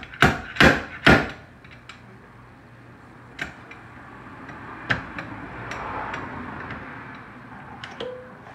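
Slide hammer on a stud-welder dent puller knocking four times in quick succession as it pulls a welded stud out of a dented car door, followed by lighter clicks and two more single knocks.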